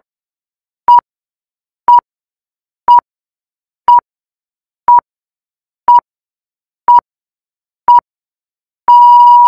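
Film-leader countdown beeps: a short, single-pitched electronic beep once a second, nine in a row, then one longer beep near the end marking the close of the countdown.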